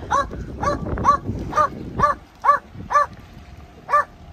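A dog barking in a regular run of short barks, about two a second, each bark rising and falling in pitch, with a brief pause near the end. It is an old, anxious dog's alarm barking at a boat passing by.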